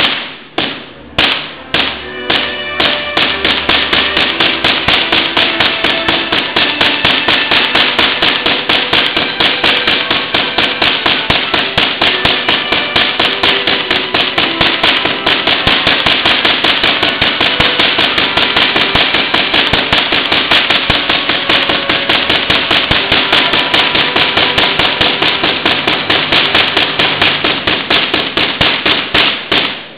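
Giant Van de Graaff generator throwing lightning-like sparks from its sphere: loud, sharp cracks, a few spaced strikes at first, then a rapid, continuous train of cracks several times a second.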